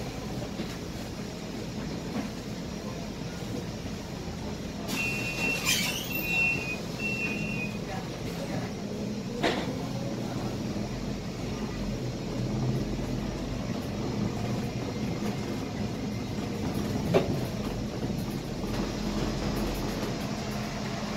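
Scania K320IA articulated bus's engine running steadily as a low hum, heard from the driver's cab while the bus moves slowly. About five seconds in, a few short high electronic beeps sound, and a couple of sharp knocks come later.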